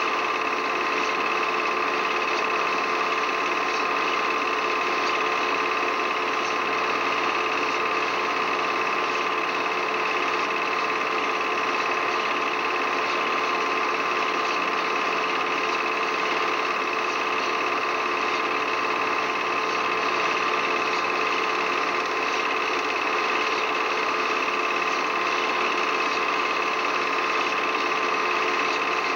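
Film projector running, a steady mechanical whir with a few constant hum tones that does not change.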